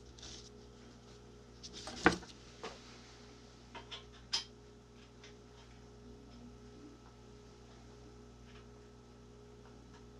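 Metal spray boom parts clanking as they are handled and fitted together: one sharp clank about two seconds in, then a few lighter clicks about two seconds later.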